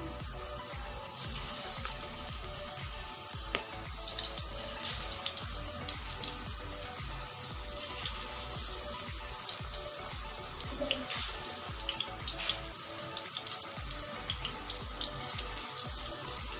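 Cabbage pakoras sizzling and crackling as they deep-fry in hot oil, the crackling picking up about four seconds in as more batter goes into the pan.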